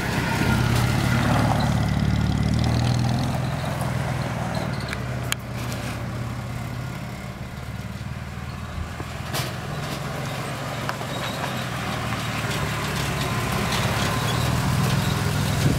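1949 Ford panel delivery truck's engine running as the truck drives off, fading as it moves away and growing louder again as it comes back past near the end.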